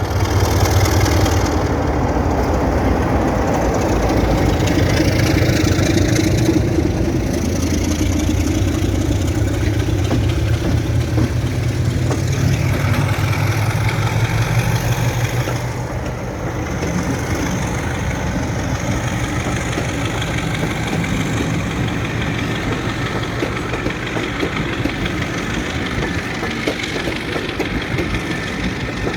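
Heritage British Rail diesel locomotives, Class 33 No. 33109 and Class 50 No. 50015, running under power. Their heavy diesel engines make a steady, loud sound that comes up sharply at the start.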